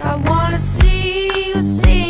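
Background music with a steady beat: a melody over a bass line, with a drum stroke about once a second.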